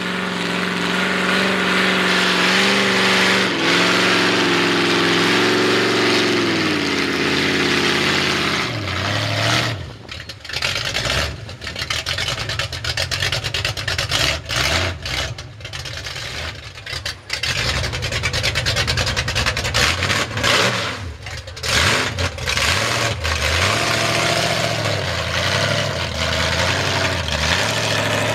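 Ford mud truck's V8 with open headers revving high and steady for about eight seconds under load in the mud, then dropping to uneven blips of throttle and idle, rising and falling with short breaks.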